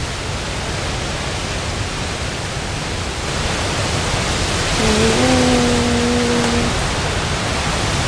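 Very strong mountain wind blasting over a small backpacking tent, heard from inside as a dense, steady rush that swells into a stronger gust about halfway through; the gusts are loud enough to be taken for thunder. Around five seconds in, a brief held hum-like tone sounds over it for about two seconds.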